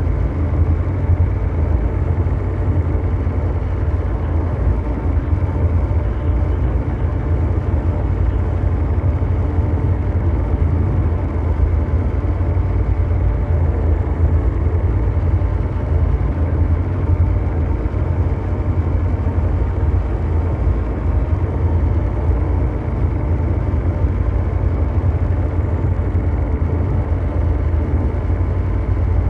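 Continuous ambient mechanical drone: a steady, engine-like rumble heaviest in the deep bass, with faint steady hum tones above it and no changes or separate events.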